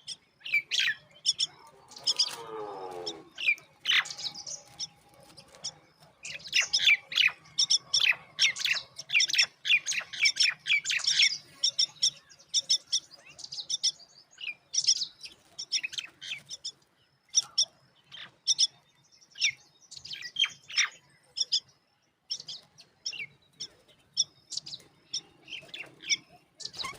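Myna chicks at the nest chirping in quick runs of short, high calls, with pauses between the runs. About two seconds in there is a brief lower rasping sound.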